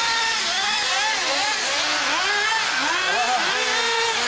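Several HPI MT2 nitro RC monster trucks' small two-stroke glow engines revving up and down over one another, their pitch rising and falling as the trucks accelerate and slow around the track.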